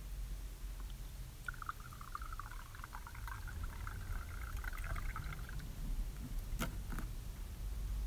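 Liquid being poured into a container for about four seconds, starting a second and a half in, followed by two short knocks.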